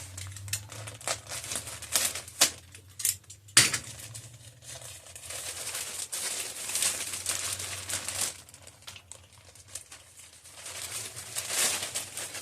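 Plastic packaging crinkling as it is handled and opened, with several sharp clicks and taps in the first four seconds, the loudest about three and a half seconds in.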